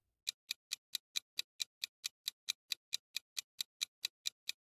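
Countdown-timer ticking sound effect: a rapid, even clock-like tick, about four to five ticks a second, marking the time left to answer a quiz question.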